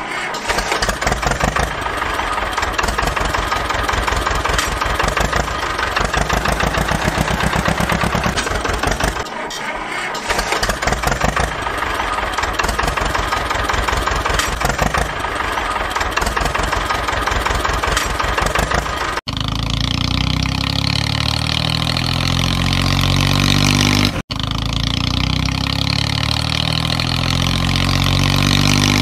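Dubbed-in motor engine sound: a fast, even chugging run. About 19 s in it cuts abruptly to a different engine recording, and there is another abrupt splice about five seconds later.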